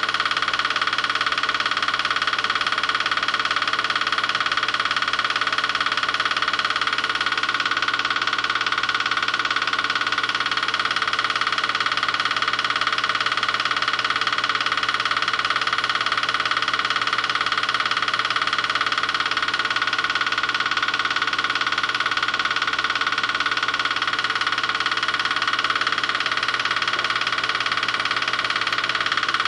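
8mm film projector running steadily: a constant mechanical hum that does not change.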